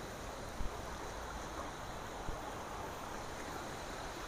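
Steady rush of flowing river water. Two brief knocks, about half a second in and a little after two seconds.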